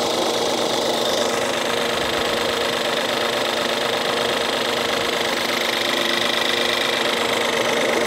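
Ford 1.6L EcoBoost turbocharged four-cylinder engine idling steadily just after its timing belt and water pump were replaced and it was retimed; it runs smoothly.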